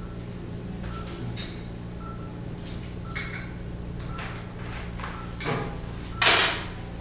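Operating-room patient monitor beeping about once a second, the pulse tone of the heart-rate monitor, over a steady electrical hum. Metal surgical instruments clink now and then, and a short loud rush of noise comes near the end.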